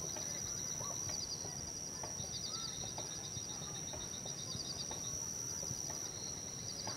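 Outdoor nature ambience of birds and insects: a steady high-pitched drone, with rapid repeated trills coming and going and a few short chirps, over a low rumble.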